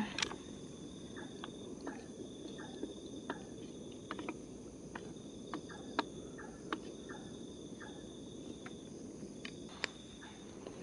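An insect trilling in high stretches of about a second, again every second or two, over a steady low hiss from a camping gas-canister stove heating a pan of water. Scattered light clicks of a wooden spatula against the pan come through.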